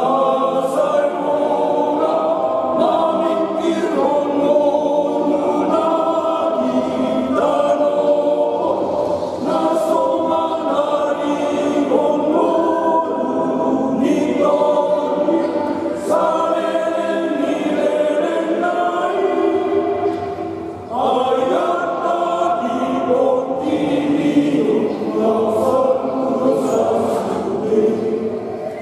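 Men's church choir singing a Batak Toba hymn in parts, holding long notes in phrases with a short break for breath about two-thirds of the way through.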